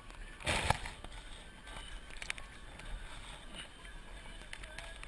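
A gaffed mahi-mahi thrashing on the gaff. There is a short burst of flapping about half a second in, ending in a sharp knock, then a few faint knocks.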